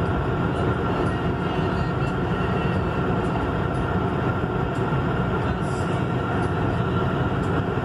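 Steady tyre, wind and engine noise inside a Honda Civic's cabin as it cruises at about 140 km/h, with an even drone.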